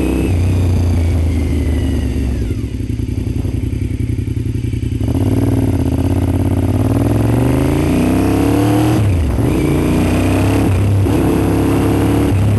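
Honda RC51's V-twin engine running under the rider. Its pitch falls as the bike slows a couple of seconds in, then climbs as it accelerates, with a sudden drop around nine seconds in as at an upshift, and runs steady after.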